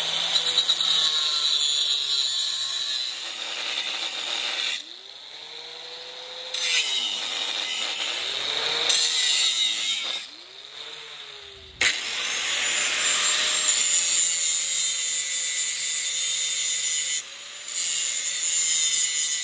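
Angle grinder with a thin .060-inch cut-off wheel cutting through the welds that hold a hook on a steel hitch adapter. A loud grinding hiss runs over the motor's whine, which rises and falls a few times as the wheel eases off and goes back into the cut, with brief lulls around five and ten seconds in.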